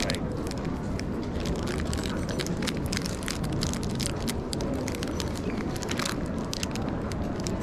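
Thin food wrapper crinkling in the hands as it is unwrapped: many quick irregular crackles over a steady low background rumble.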